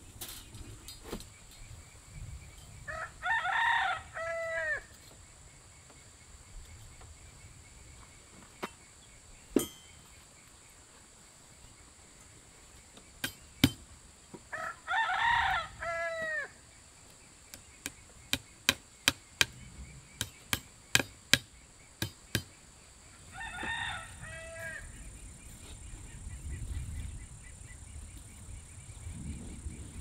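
A rooster crows three times, about ten seconds apart, each crow lasting about two seconds. Between the second and third crow comes a quick run of sharp clicks, about two a second.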